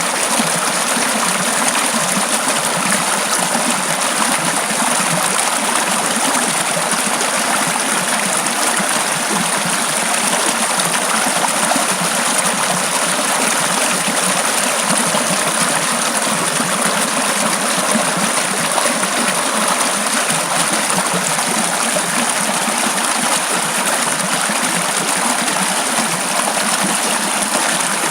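Mountain valley stream rushing steadily the day after a typhoon, an even, unbroken wash of running water.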